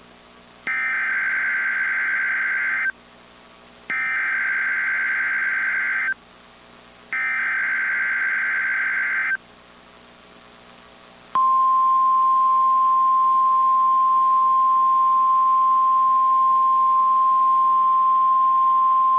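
Emergency Alert System SAME header: three bursts of warbling digital data tones, each about two seconds long with a second's gap between them, marking the start of a new alert. They are followed by the NOAA Weather Radio 1050 Hz alert tone, one loud, steady, high beep held for the last eight seconds.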